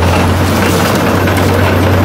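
Diesel engine of a large Caterpillar crawler bulldozer running with a steady, deep drone as the machine crawls over a car.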